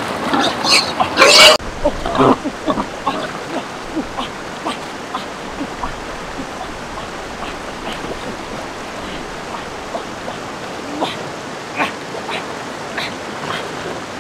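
Splashing in shallow river water over the steady rush of flowing water, with a few loud cries and splashes in the first couple of seconds, the loudest about a second and a half in, then scattered small splashes.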